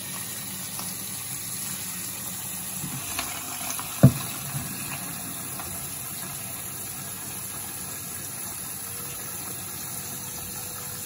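Kitchen tap running steadily, filling a large pot of snails with water, with one sharp knock about four seconds in.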